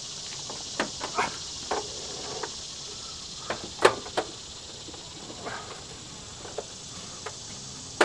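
Steady chorus of insects in the trees, with scattered knocks and clunks as a small window air conditioner is set into an SUV's back seat; the loudest knock comes about four seconds in.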